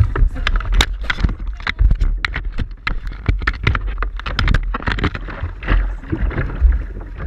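Kayak being paddled through choppy water: water slaps and splashes against the hull in quick irregular strokes, over a steady low rumble of wind on the deck-mounted camera's microphone.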